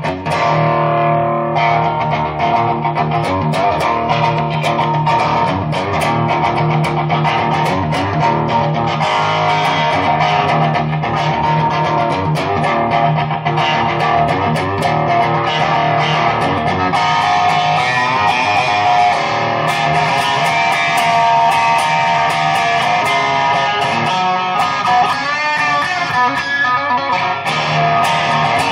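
Electric guitar, a 2005 Squier Telecaster wired as an Esquire, played on its straight bridge pickup with no tone control: a continuous run of picked notes and chords with the distinctive Esquire snarl. It goes through a Peavey Vypyr amp's Fender Twin model with a little reverb.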